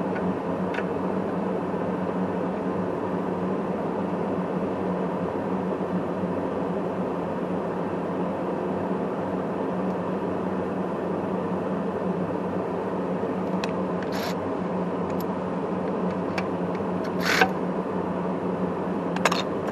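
A steady mechanical hum with a constant low tone, with a few short clicks of hand-tool work on metal scattered through it, the sharpest about three-quarters of the way in.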